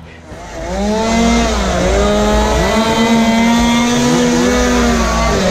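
A crowd shouting and yelling, many voices overlapping in long drawn-out cries over a steady low rumble, swelling up about half a second in.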